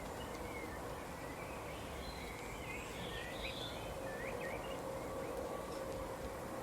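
Small songbirds chirping: a scatter of short, quick chirps and slurred notes, busiest in the middle, over steady background noise with a faint hum.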